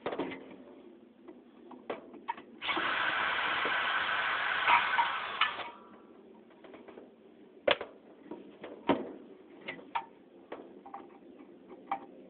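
Metal fan parts and screws being handled, giving scattered clicks and knocks, with a small power tool, such as a cordless drill-driver, running for about three seconds a few seconds in, starting and stopping abruptly.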